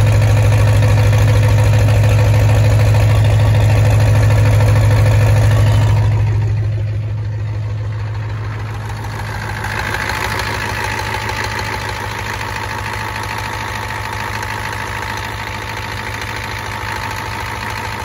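1993 Ford F-250's 7.3 L IDI V8 diesel idling after a cold start from sitting for over a month. About six seconds in its loud low drone drops away and the engine settles into a quieter, steady idle.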